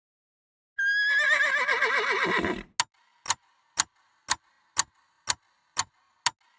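Horse whinnying once: a quivering, shaking call that drops in pitch over about two seconds. Then a clock-like tick sounds about twice a second.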